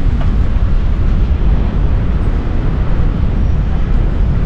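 Steady low rumble of wind buffeting the microphone of a camera riding on a bicycle, with city street traffic noise mixed in.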